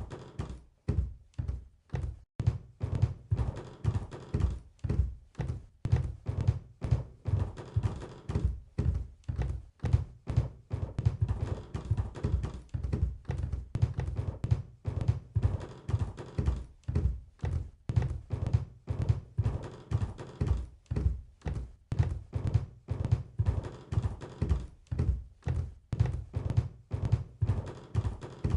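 Heavy animal footfalls thudding in a steady rhythm, about two or three a second: a stampede sound effect.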